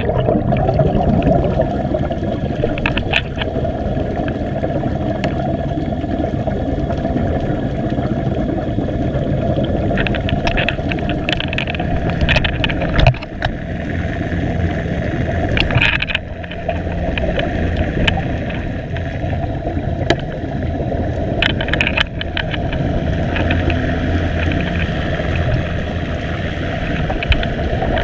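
Muffled underwater noise heard through a camera's waterproof housing: a steady low rumble and hum, broken several times by short bursts of air bubbles rising from divers' helmets and regulators.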